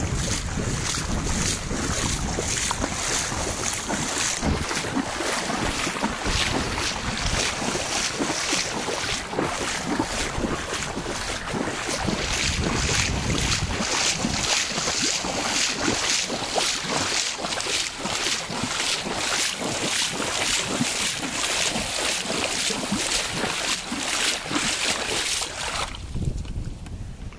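Wind blowing across an outdoor microphone: a loud, steady rush with gusty rumbling buffets, the high hiss dropping away near the end.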